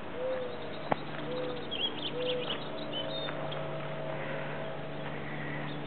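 A dove cooing: soft, low notes that rise and fall, repeated about once a second. Faint high bird chirps and a steady low hum sit behind it, with one sharp click about a second in.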